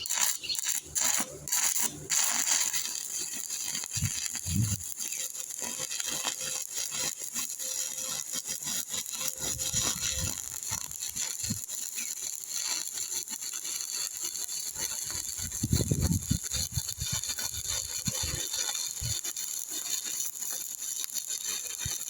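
Stick-welding arc from a 2.5 mm E7018 electrode: sharp crackles as the arc is struck in the first two seconds, then a steady crackling hiss as the horizontal fillet weld is run. A few dull thumps come through now and then.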